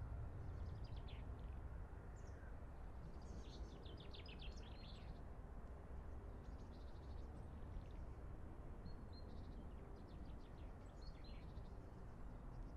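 Small songbirds chirping in several short, quick phrases of high notes, over a steady low rumble of outdoor background noise.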